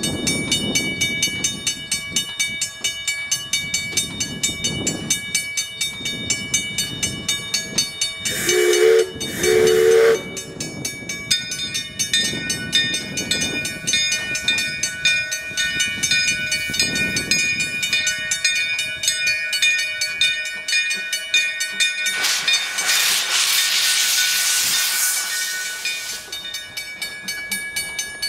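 Henschel steam tank engine working slowly at a grade crossing: slow exhaust chuffs, two short whistle blasts a little under ten seconds in, and a loud blast of steam hiss lasting about four seconds later on. A grade-crossing bell rings steadily throughout.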